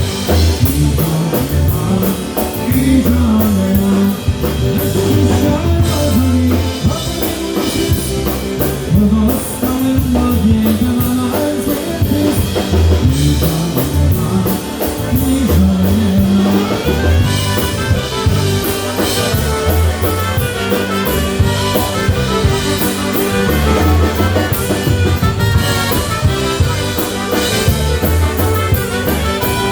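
A live polka band playing an oberek, a fast Polish dance tune, with drum kit and guitar under the melody. About halfway through, the melody part changes.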